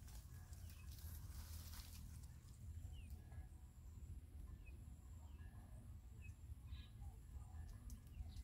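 Faint outdoor ambience in a leafy tree: a low rumble of wind on the microphone, a brief rustle of leaves and branches about a second in, and a few short, scattered bird chirps.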